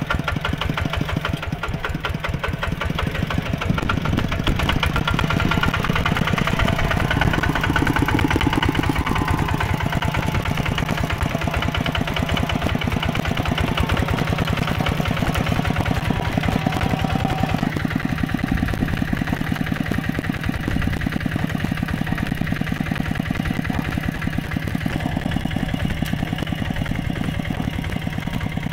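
Single-cylinder diesel engine of a two-wheel walking tractor running steadily, with a rapid, even beat of firing strokes; it gets a little louder about four seconds in.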